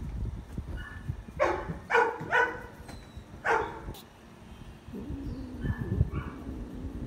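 A dog barking four times in short, sharp barks, three close together and one after a short gap, followed by a low steady drone.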